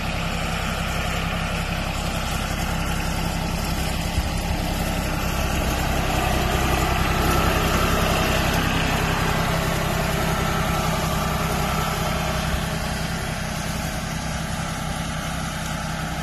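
John Deere 755 compact tractor's three-cylinder diesel engine running steadily as the tractor drives across grass. It gets a little louder around the middle as the tractor passes close.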